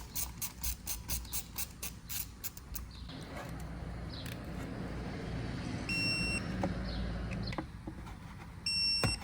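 A ratchet wrench clicking evenly, about four clicks a second, for the first three seconds, followed by a steady low rushing noise. Two short electronic beeps, one about six seconds in and one near the end.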